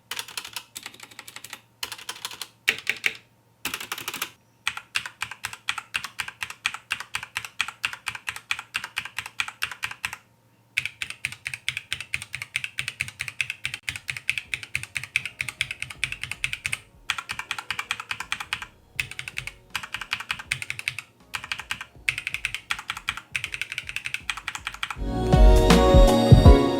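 Mechanical keyboard keys with linear red switches (Cherry MX Red and Gateron Red) pressed in quick runs, several clacks a second, with a few short pauses. Music comes in near the end.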